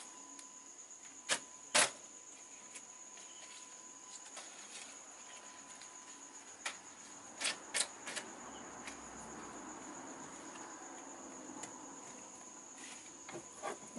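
Handling of a silicone keyboard cover as it is fitted over a wireless keyboard: a few sharp taps and clicks, with soft rustling about eight to twelve seconds in. A faint steady high whine runs underneath.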